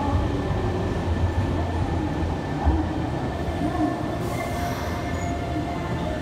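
Electric train standing at a station platform, its equipment giving off a steady hum and whine of several held tones over a low rumble, with a short hiss about four seconds in.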